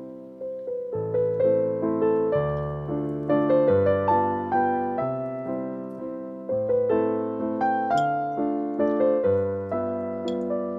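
Background piano music: a melody of single notes over a low bass note struck every second and a half or so, each note dying away after it is struck.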